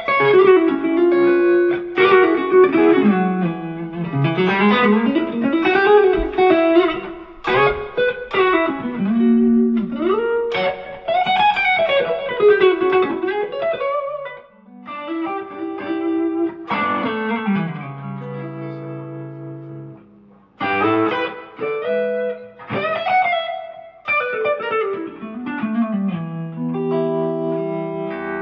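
Electric guitar played through a JK Oxygen 1 valve preamp into a digital amp modeler: a melodic lead line with many gliding bends and slides, then held chords ringing out in the middle, a short dip about two-thirds through, and the lead picking up again.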